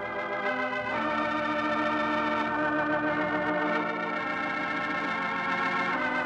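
Organ music: held chords that change every couple of seconds, the closing theme played out at the end of the programme.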